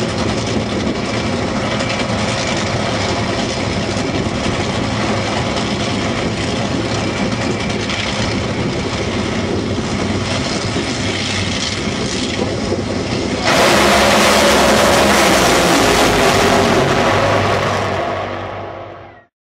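Top Fuel dragsters' supercharged nitromethane V8 engines running at the starting line, with heavy wind on the microphone. About thirteen seconds in the sound suddenly gets louder, then fades out near the end.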